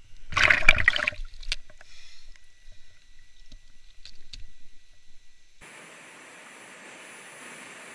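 A loud splash of water lasting about a second near the start, then a few light knocks. After a sudden change, the steady rushing of flowing stream water.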